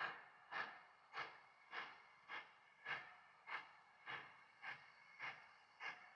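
Exhaust beats of the Virginia & Truckee 4-6-0 No. 25 steam locomotive working its train at low speed: an even chuff-chuff, just under two beats a second.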